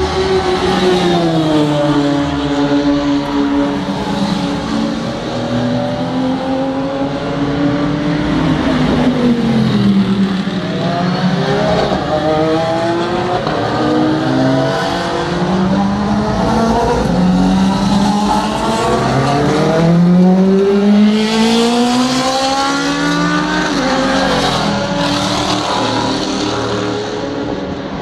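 Cars' engines running at full throttle on a race circuit, repeatedly rising in pitch through the gears and dropping back as the cars shift, lift and pass. Several engines overlap, and the sound never lets up.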